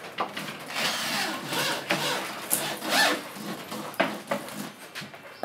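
Tool working wood: irregular rasping and scraping strokes with several sharp knocks.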